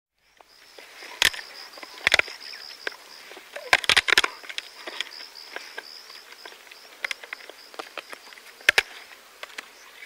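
Spotted hyaena crunching buffalo bones close up. There are sharp cracks of bone about a second in, at about two seconds, a cluster around four seconds and again near nine seconds, with smaller crunches between. A steady, pulsing high chirp goes on in the background.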